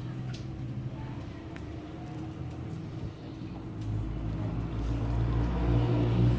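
A low motor rumble, steady at first, then swelling from about four seconds in and growing louder toward the end, with a few faint clicks.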